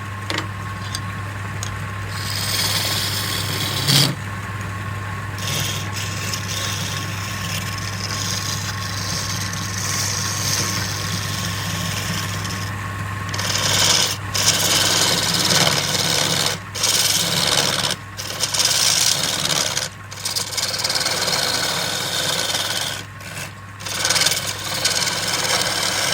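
Wood lathe running with a steady motor hum while a tool rubs and scrapes against the spinning wood. The rasping grows stronger about halfway through and breaks off briefly several times as the tool lifts away.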